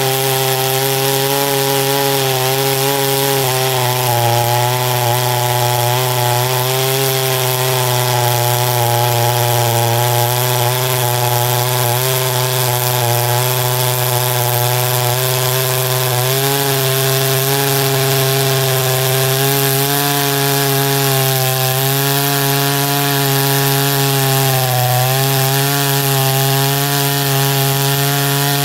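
Two-stroke clone chainsaw with a 36-inch bar and full-chisel chain running at full throttle under load, cutting through a thick green hardwood log. The engine note holds high and steady, dipping slightly and recovering several times as the chain bites.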